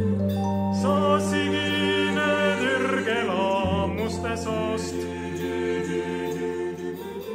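Mixed-voice vocal ensemble singing a choral song in close harmony over a held low bass note, which changes about halfway through.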